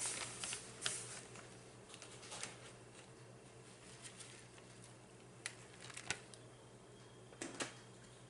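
Quiet rustling and a few sharp light clicks from handling food as shredded cheese is put into taco shells, over a faint steady hum.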